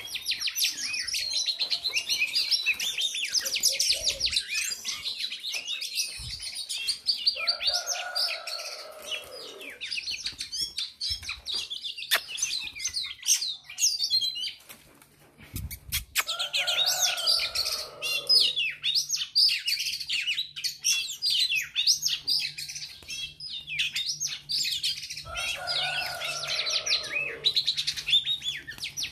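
Birds chirping and twittering rapidly and continuously, with a lower call about two seconds long repeated three times, roughly nine seconds apart.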